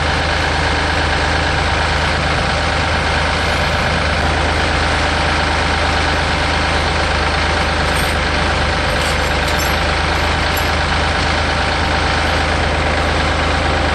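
Tractor engine running at a steady speed, with no rise or fall in pitch or level.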